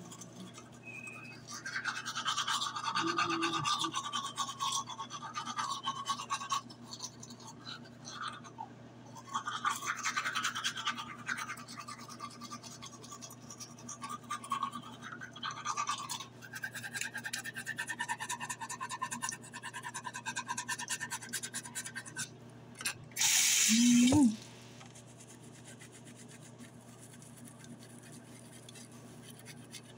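Manual toothbrush scrubbing teeth through toothpaste foam, in bursts of rapid back-and-forth strokes. About 23 seconds in there is a brief, louder burst.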